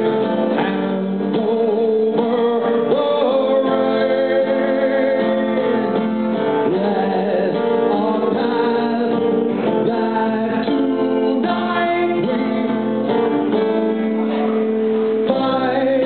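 Live music: a song sung over acoustic guitar with held melody lines, played continuously.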